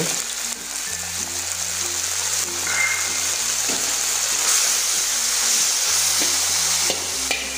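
Sliced onions, green chillies, ginger and garlic sizzling in oil in a steel wok while dark soy and oyster sauce are added and stirred in with a spatula. Background music with slow, held low notes plays under the steady sizzle.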